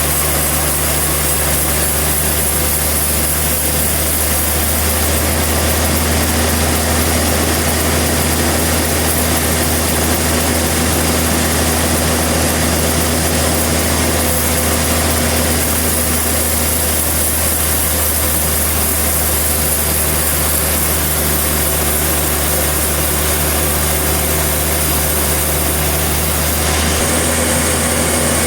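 Portable sawmill running: a steady engine drone under the dense, hissing noise of the saw, holding level throughout, with a slight change in the engine note near the end.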